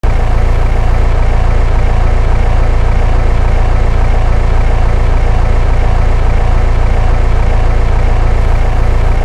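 Car engine idling steadily, with a loud, even low rumble.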